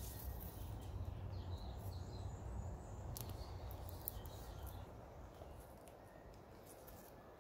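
Faint outdoor ambience: a low rumble that eases off after about four seconds, with a few distant bird chirps.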